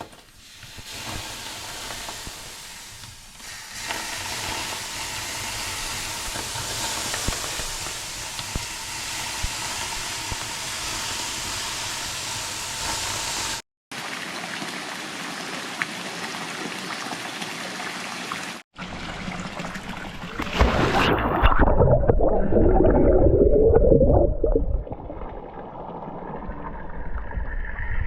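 Running water, a steady rushing like a stream, in several short clips cut together; near the end a louder, deeper rumbling stretch of a few seconds.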